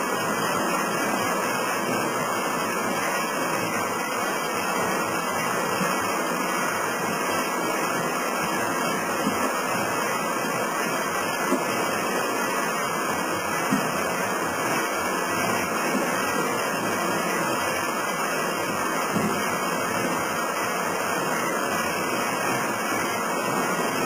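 Historic belt-driven frame saw and its drive belts running, powered by an old electric motor: a steady, dense mechanical clatter with occasional sharp knocks.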